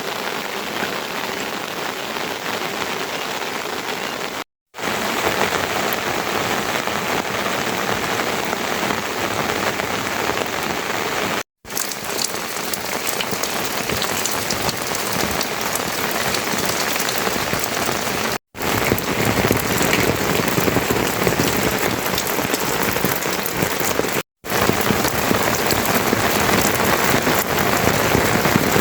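Steady rain falling on surfaces, a dense even hiss, broken by four brief drops to silence.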